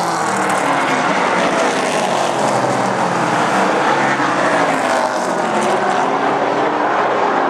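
Super stock race cars' engines running at speed on an oval track, a loud steady drone whose pitch rises and falls as the cars pass.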